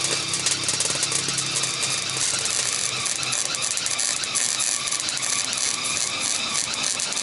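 Gas-shielded MIG welder arc crackling and sputtering as it welds a patch onto a rust-rotted Jeep floor pan. The sound is mostly an uneven sputter rather than a steady weld, which goes with the welder struggling to find clean metal in the rot.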